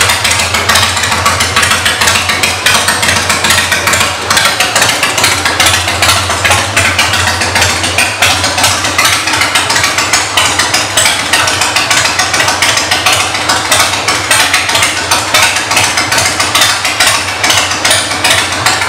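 Harley-Davidson Fat Boy's air-cooled Twin Cam 88B V-twin idling steadily through aftermarket exhaust pipes, a loud, rapid pulsing.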